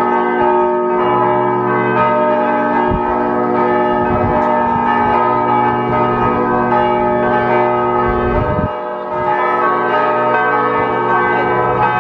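Church bells ringing continuously, many bells sounding together in a festive peal.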